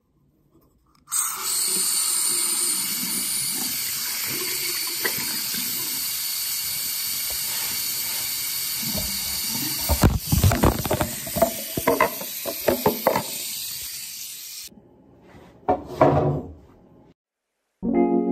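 Water running steadily in a bathroom, with a run of knocks and bumps between about ten and thirteen seconds in. The water cuts off abruptly near the end.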